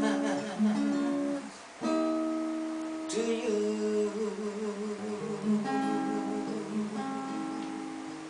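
Steel-string acoustic guitar strumming a few chords, each left to ring and fade away before the next.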